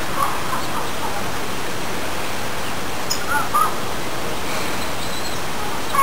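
Steady outdoor hiss with a few short bird chirps, two of them close together about three and a half seconds in.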